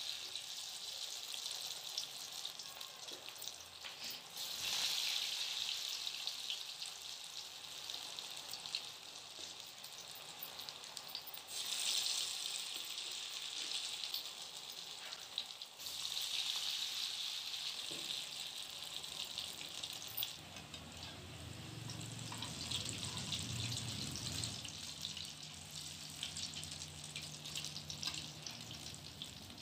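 Grated-potato pakora batter deep-frying in hot oil in a karahi: a steady sizzling of bubbling oil that swells louder a few times. A faint low hum comes in about two-thirds of the way through.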